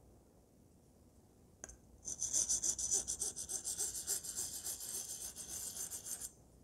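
Near quiet at first, then a light click, then a straight razor's steel blade scraped in quick strokes across an Atoma 600 diamond plate, a scratchy high hiss lasting about four seconds before it stops. The strokes round off the blade's tip to grind out a dent at the nose.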